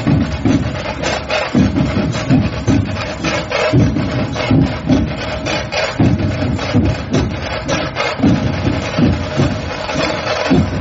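Loud music with a steady, driving drum beat.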